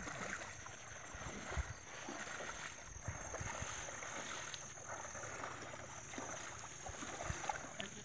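Shallow river water sloshing and splashing as men wade through it pushing a push net, with wind buffeting the microphone in irregular low thumps. A thin, steady high tone runs underneath.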